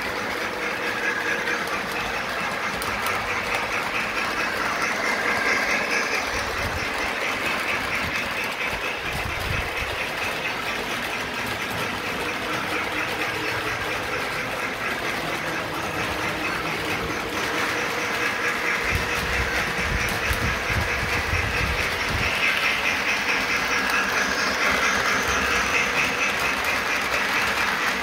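Model train rolling along three-rail track: a steady running rumble and clatter of the locomotive and cars, a little louder at times as they pass close.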